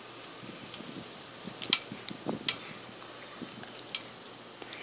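A few scattered sharp clicks and ticks from a tabby kitten eating a cracker on a metal mesh table, heard over a steady faint hiss.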